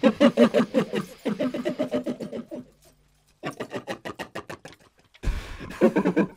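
A voice making fast, pitched pulsing sounds, about eight pulses a second, in three bouts broken by short pauses.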